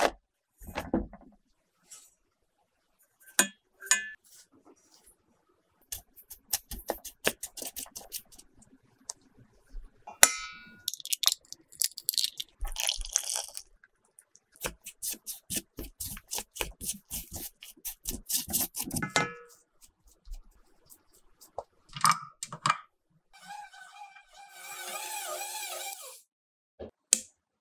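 Metal measuring cups and utensils clinking and scraping against a stainless steel mixing bowl in quick runs of taps as dry ingredients go in and are stirred. Near the end an electric stand mixer runs steadily for about two seconds, kneading dough with its dough hook.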